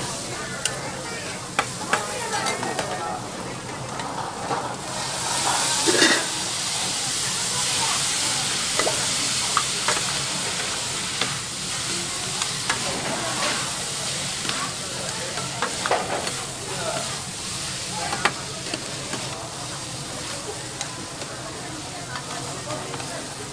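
Noodles and vegetables sizzling on a flat-top steel griddle while two metal spatulas scrape and clack against the plate as they are tossed. The sizzle swells loudest about five seconds in, then settles to a steadier hiss.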